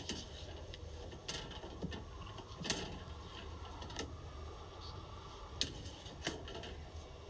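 Irregular scuffs and rubs with a few sharp knocks as a body is pushed into an open kitchen oven, over a low steady hum.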